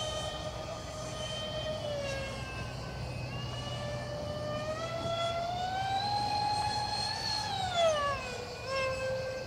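Twin electric ducted fans of a Freewing Su-35S radio-controlled model jet whining steadily. The pitch dips slightly, then rises for about two seconds in the middle and falls back lower near the end.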